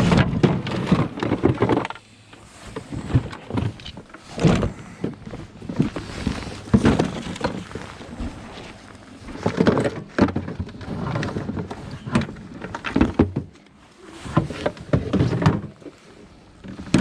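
Irregular thuds, knocks and clatter from dumped junk and scrap being rummaged through and moved about by hand.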